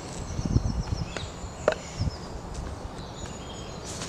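Pieces of split firewood being stood upright on a log: a dull wooden thud about half a second in, then a few light wooden knocks.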